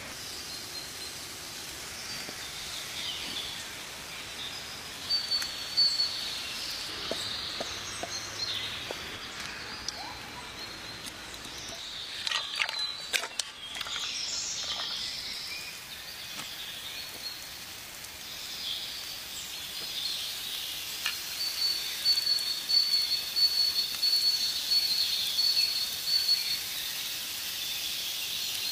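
Outdoor ambience of birds chirping, with a high, steady trill through the second half. A few sharp clicks sound about twelve to fourteen seconds in.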